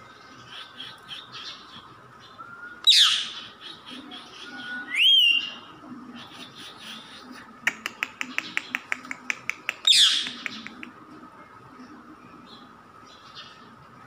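Rose-ringed parakeet calling: two loud, harsh screeches that sweep downward, about three and ten seconds in, and a rising whistled call around five seconds. Between them comes a quick run of about a dozen sharp clicks.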